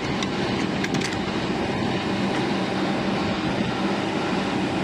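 Central air-conditioning unit running with a steady mechanical hum and a constant low drone, with a few faint clicks in the first second. The unit is short of refrigerant gas, as the technician judges.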